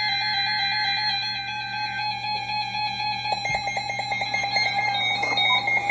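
Emergency Alert System alert tones announcing the next weather warning: a steady, high electronic attention tone. A short warbling data burst ends about a second in, and a fast pulsing joins about halfway through.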